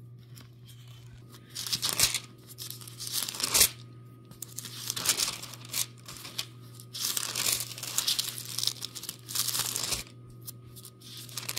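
Thin Bible pages being turned and leafed through by hand: a string of short paper rustles and crinkles, the loudest about two and three and a half seconds in.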